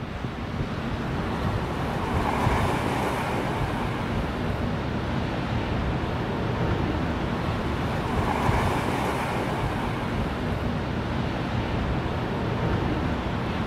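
Small waves washing over a rocky shore, swelling twice, with wind rumbling on the microphone.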